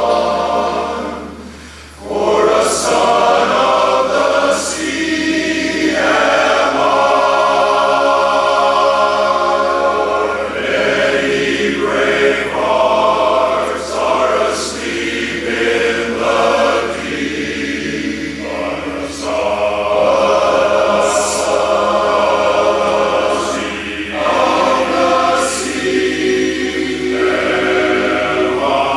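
A barbershop chorus singing a cappella in close harmony, with a brief pause about a second and a half in before the voices come back in full.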